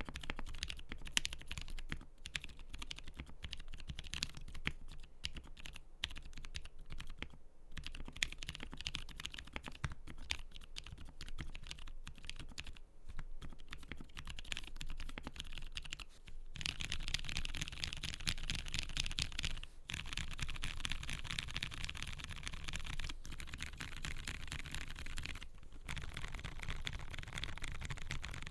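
Steady, fast typing on a mechanical keyboard with lubed Zealios 62g tactile switches and GMK Iris replica keycaps. There are a few brief pauses, and the keystrokes come denser and a little louder from about two-thirds of the way in.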